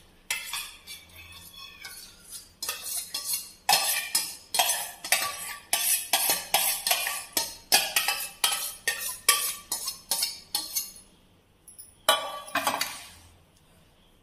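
A steel spoon clinking and scraping against stainless-steel bowls as curd is scooped out and measured, with quick ringing strikes several times a second. The strikes stop about 11 seconds in, and one last clang comes near the end.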